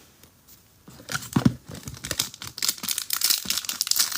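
Foil wrapper of a Bowman Chrome trading-card pack being torn open and crinkled. A dull bump about a second and a half in, then dense crackling from about two seconds in.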